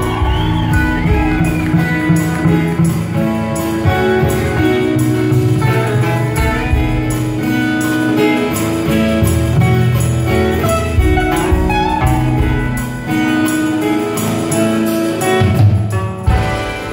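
Live band playing an instrumental passage: strummed and picked acoustic guitars over bass and drums, with a violin line.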